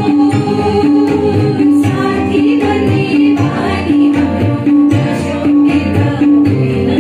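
Several women singing a song together into microphones, over amplified accompaniment with a steady, repeating beat.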